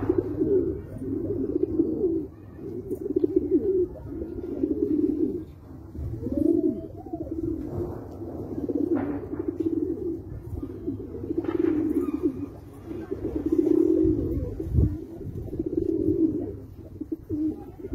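Kandahari pigeons cooing: low, throaty coos follow one another with only brief gaps.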